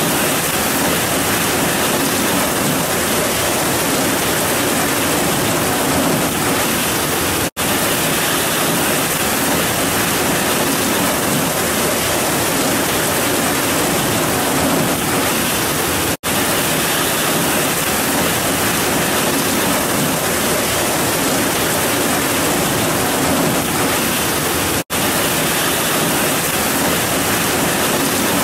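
Heavy rain pouring down in a steady, dense hiss. It cuts out for a split second three times, about every eight and a half seconds.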